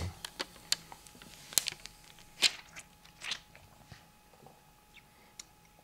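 Crinkling and sharp crackles of thin plastic film being handled and peeled from a smartphone, with small clicks of fingers on the phone; a few louder crackles come in the first half.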